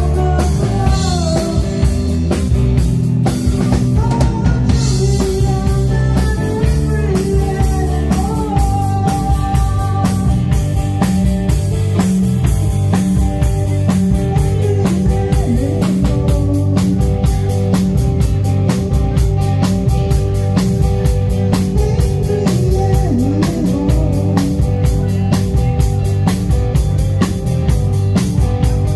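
Live rock band playing: drum kit, electric bass and electric guitar at full volume. A woman's singing in the first several seconds gives way to an instrumental stretch.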